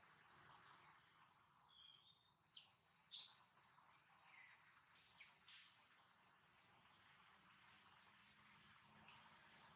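Insects chirping in a steady, high, pulsing trill, about three or four pulses a second. Several short, louder high chirps and whistles break in between about one and six seconds in.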